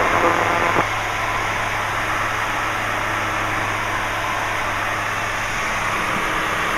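Steady drone of a light aircraft's engine and propeller heard inside the cockpit, a low even hum over constant hiss. A louder layer of hiss drops away just under a second in.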